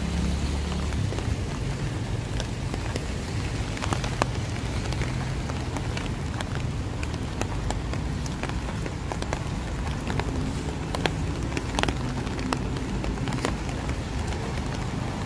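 Steady rain falling on hard surfaces, with many sharp drops ticking irregularly over a low rumble.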